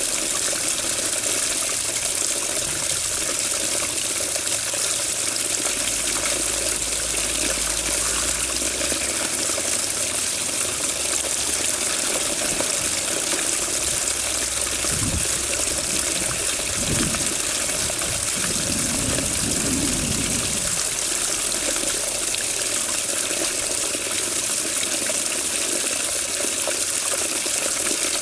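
Water running and splashing in a steady, even hiss, with a few brief low rumbles partway through.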